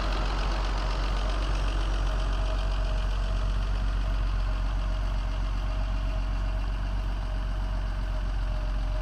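Mercedes-Benz 250S straight-six engine idling steadily, freshly revived and running under its own power after more than five years laid up.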